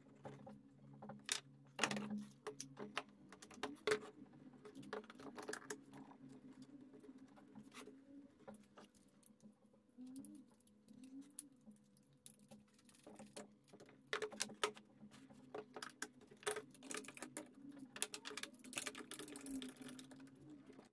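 Quiet, scattered clicks and knocks of blue one-handed bar clamps being handled and squeezed tight onto a freshly glued wooden strip, over a faint steady hum.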